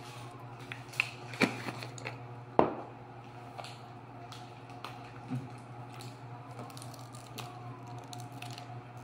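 A metal spoon clicking against a bowl and seasoning jar as seasoning is scooped and sprinkled over raw chicken wings: three sharp clicks in the first few seconds, the loudest near the third second, and a softer knock about halfway, over a steady low hum.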